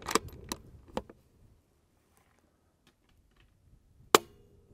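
Bergara bolt-action .22LR rifle with a Dead Air Mask suppressor: a few sharp clicks of the bolt being worked in the first second, then a single suppressed shot of subsonic CCI Quiet ammunition about four seconds in, a short sharp crack with a faint ring after it, metered at about 104 dB.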